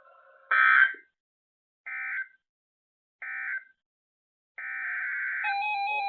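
Weather radio EAS digital data bursts: three short buzzy chirps about a second and a half apart, the first the loudest, the end-of-message code closing a warning. About four and a half seconds in, a longer burst begins the header of the next alert, and soon after a receiver's alert tone starts beeping steadily.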